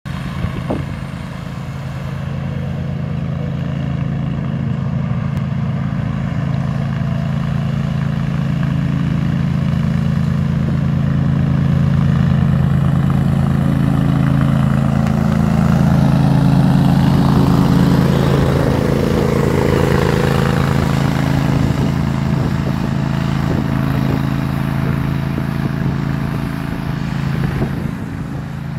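Walker R21 ride-on mower running steadily while mowing, its engine hum growing louder as it comes close, loudest about halfway through, then easing off as it moves away.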